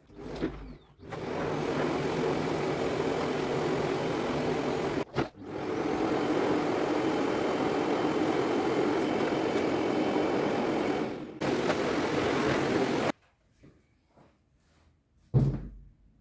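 Vacuum cleaner switched on, its motor whine rising as it spins up, running steadily with a loud rushing noise. It cuts out briefly after about five seconds, spins up again, and stops abruptly near the end. A thump comes just before it starts and another near the end.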